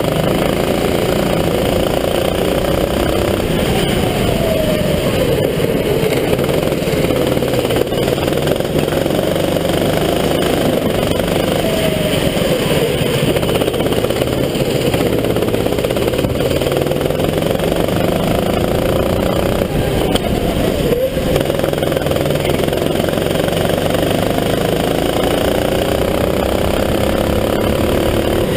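Sodi RT8 rental kart engine heard onboard at racing speed, its pitch climbing along the straights and dropping off into the corners over and over, with wind and road noise.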